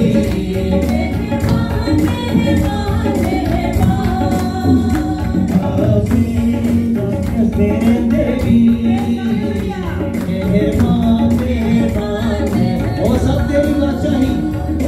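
Live worship song: several voices singing together over an electronic keyboard, with a steady rhythmic percussion beat.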